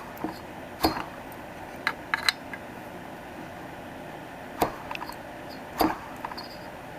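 A handful of sharp snapping clicks at irregular intervals: the ignition spark jumping the gap of the removed spark plug as the Homelite two-stroke engine's flywheel magneto fires while the engine is turned over by hand.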